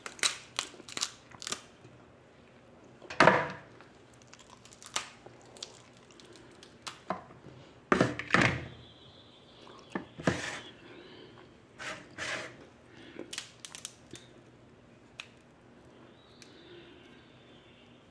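Snow crab legs being broken apart and cleaned by hand over a bowl in a sink: irregular sharp cracks, clicks and knocks of shell, the loudest about three and eight seconds in.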